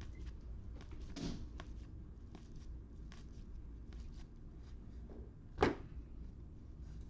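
Trading cards being handled: small clicks and rustles, a soft thud about a second in, and one sharp knock a little before the end.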